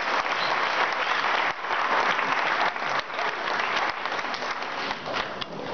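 Audience applauding: many hands clapping together, keeping up throughout.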